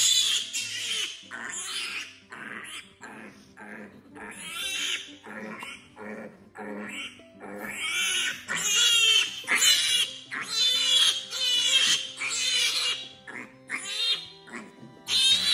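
A piglet squealing in a long run of shrill, repeated cries, loudest about halfway through. These are its distress squeals while it is held on its back for castration and wound care.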